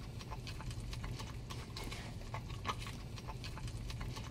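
Close-up chewing of a mouthful of Big Mac burger: irregular wet clicks and smacks of the mouth, over a low steady hum.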